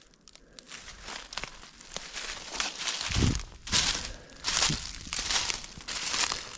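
Footsteps crunching through dry fallen leaves at a walking pace, a crunch every half second or so, with a low thump about three seconds in.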